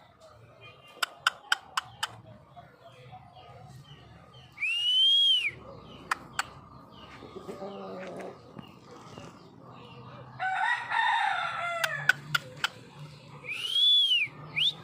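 Aseel chickens calling: two high, arching calls about a second long, one about five seconds in and one near the end, and a longer call with many harmonics around the middle, with a few sharp taps in between.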